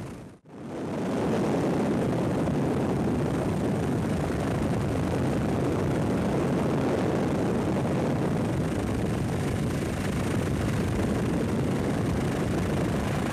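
Steady rushing engine and rotor noise of a news helicopter, with no clear beat. It drops out for a moment about half a second in, then runs on evenly.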